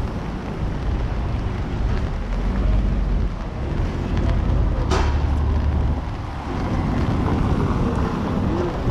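Wind buffeting the action camera's microphone, a dense, steady low rumble. A brief sharp high-pitched sound cuts through about five seconds in.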